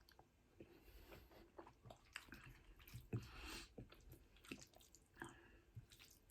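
Faint, wet chewing and mouth sounds of a person eating spaghetti bolognese close to the microphone: scattered soft clicks and smacks, with a brief swishy noise a little after three seconds in.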